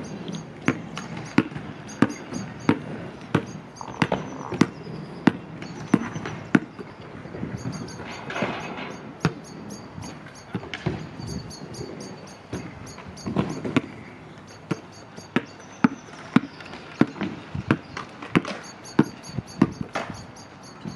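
Basketball being dribbled on an asphalt court: sharp, evenly spaced bounces about every two-thirds of a second, thinning out in the middle around a shot and picking up again near the end.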